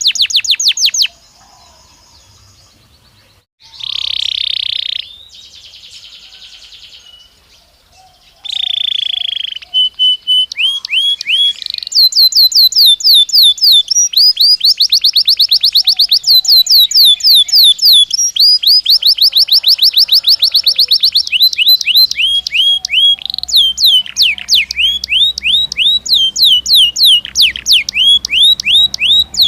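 Belgian canary singing. In the first ten seconds come short buzzy rolls and brief trills separated by pauses; from about twelve seconds on it is a near-continuous song of rapid repeated trills made of quick falling notes, with the speed changing from phrase to phrase.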